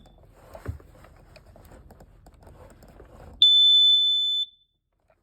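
1998 Nighthawk carbon monoxide alarm giving one loud, high-pitched beep of about a second, about three seconds in, after faint knocks. It is beeping weird rather than sounding properly under test, which the owner takes as the sign that the alarm has quit working.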